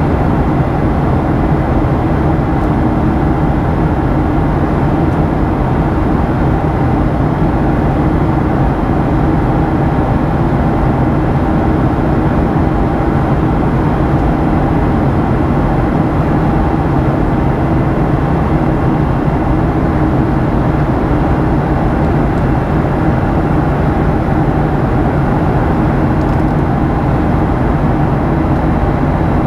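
Steady cabin noise inside a Boeing 737-800 in flight: the even roar of airflow and the hum of its CFM56-7B turbofan engines, with a few low steady tones. It does not change.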